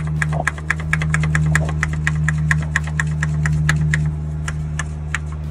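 Hand primer pump on a Paccar MX13 fuel filter housing being pumped rapidly. It gives an even run of clicks, about six a second, that thins out and stops near the end. This is priming the fuel system after a fuel filter change, pumped until it meets resistance. A steady low hum runs underneath.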